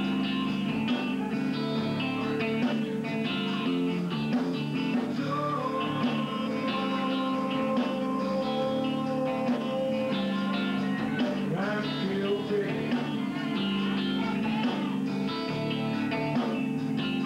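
Live rock band playing: electric guitars, bass and drums, with a lead line holding long notes through the middle.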